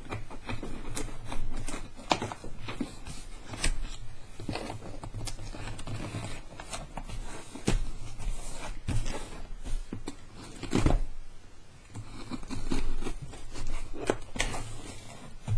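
A cardboard box being pulled and pried at by hand while someone struggles to open it, making irregular knocks and scrapes of cardboard and packaging.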